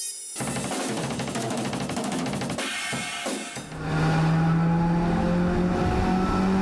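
Outro music with a drum-kit beat and cymbals. About four seconds in it swells, with louder, held low notes.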